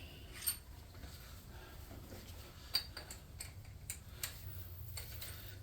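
A few light, irregular clicks and taps of small metal tools and parts being handled, over a faint steady low hum.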